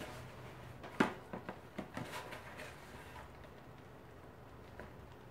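Hands working biscuit dough in a mixing bowl: a sharp knock about a second in, then a few softer knocks and taps over the next second and a half, then only faint room sound.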